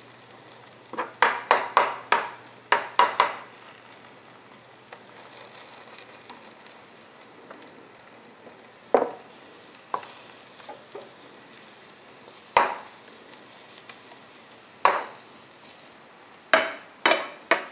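Raw grated-potato pancake batter frying in hot oil, a steady sizzle. Over it, sharp clinks and scrapes of a metal spoon against the bowl and pan as batter is spooned in: a quick run of them about a second in, then single knocks every few seconds.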